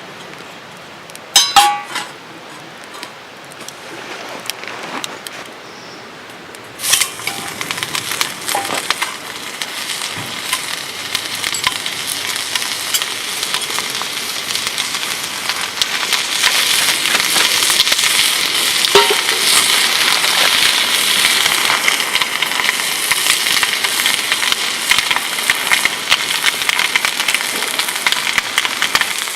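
Food frying in a hot pan over a camp stove or fire. A sharp clink comes about a second and a half in. About seven seconds in, a sizzle starts suddenly, grows louder and then keeps up a steady crackling hiss.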